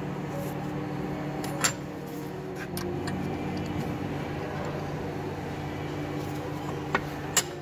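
Soft background music with held notes, and a few sharp metallic clicks, the loudest about one and a half seconds in and again near the end, from a spanner turning a stud extractor held in a bench vise.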